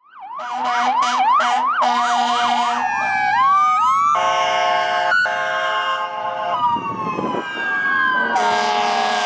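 Emergency vehicle sirens: a fast electronic yelp sweeping up and down, changing to a rising wail after about three seconds, then a long horn blast broken once, and a slow falling wail under more horn near the end.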